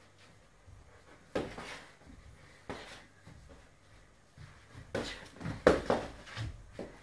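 Scattered thuds and slaps of boxing gloves and kicks landing during sparring, a couple of single hits early on and a quick flurry of louder hits about five to seven seconds in.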